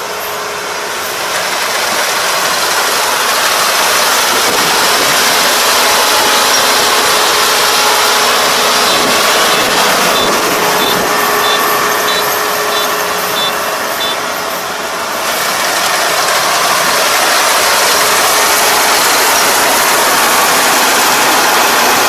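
Rice combine harvester working through standing rice, its engine and cutting and threshing gear making a steady loud noise. It grows louder as the machine closes in, eases off briefly about fourteen seconds in, then builds again.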